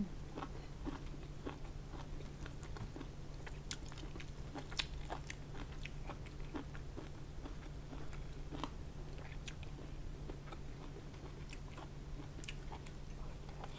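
Close-miked chewing of pork curry with rice: scattered short mouth clicks and smacks, over a steady low hum.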